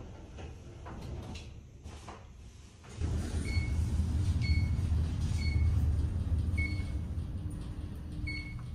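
A low vehicle rumble starts suddenly about three seconds in, with a short high beep sounding five times at roughly one-second intervals over it. Before it there are only faint clicks.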